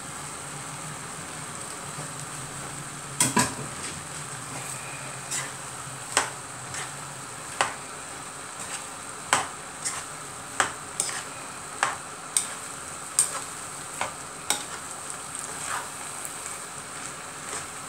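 Mixed vegetables with chicken cooking and sizzling in a small pot while being stirred. From about three seconds in, the utensil knocks sharply against the pot roughly once or twice a second.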